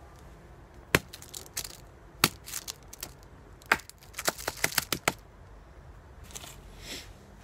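Small wooden block knocked down onto a log stump to smother a burning firelighter cube. A string of sharp wooden knocks: two single ones in the first few seconds, then a quick flurry of taps about four to five seconds in.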